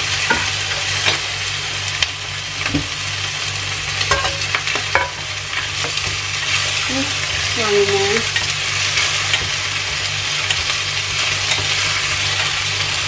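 Vegetables (asparagus, wood ear mushrooms and bell pepper) sizzling steadily in a hot stainless steel frying pan while being stir-fried with wooden chopsticks, which tap and scrape against the pan now and then.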